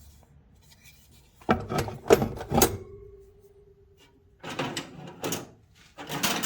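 Vintage metal hand tools clanking against each other and the steel toolbox as they are rummaged through. There are three sharp knocks about a second and a half in, the last leaving a ringing tone for about a second, then two more knocks a couple of seconds later.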